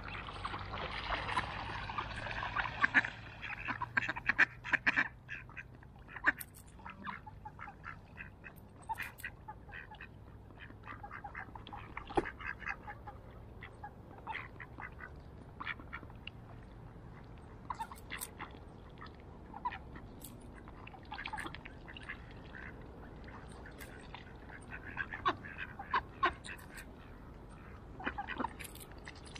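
Mallard ducks quacking in short, scattered calls, busiest in the first few seconds and again near the end.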